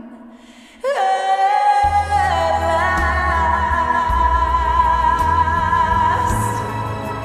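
Background music with sung vocals: a held, gliding singing line comes in loudly about a second in, joined by a heavy bass beat about two seconds in.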